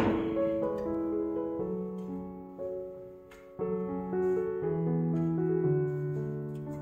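Background piano music: held notes and chords changing every second or so, with a fresh chord struck at the start and another about three and a half seconds in.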